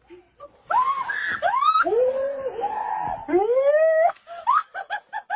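Loud drawn-out cries that swoop up and down in pitch, several in a row, breaking near the end into a run of short, quick cries.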